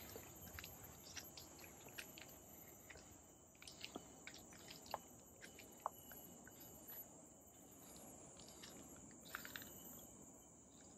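Faint tropical forest ambience: a steady high-pitched insect drone, with scattered short bird chirps and light footsteps crunching on dry leaf litter.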